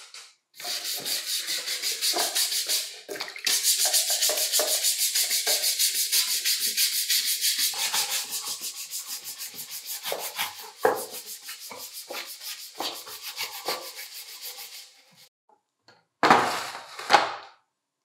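Rapid back-and-forth rubbing strokes, about five a second, a hissy scraping noise that stops about fifteen seconds in. A short separate rush of noise comes near the end.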